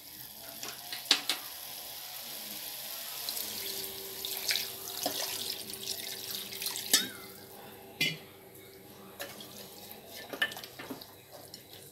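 Water poured from a glass jug into an aluminium pressure cooker of chicken pieces: a steady splashing pour that stops about eight seconds in, with a few sharp clinks along the way.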